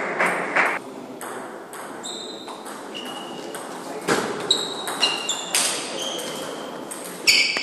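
Table tennis ball hits, each a short high ping. A few scattered pings come first, then from about four seconds in a quick rally of strikes off bats and table, about two to three a second.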